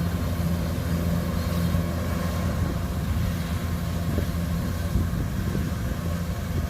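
Kubota DC105X combine harvester running steadily, with a constant low engine drone and the noise of its machinery over it.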